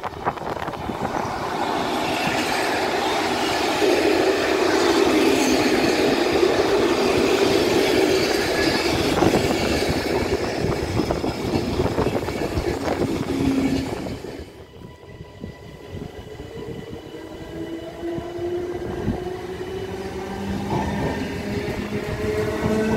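Belgian electric multiple unit passing close by, its wheels clattering and rumbling over the rails for the first fourteen seconds or so. The sound then drops sharply, and another electric train is heard pulling away, with several whining tones rising in pitch as it gathers speed.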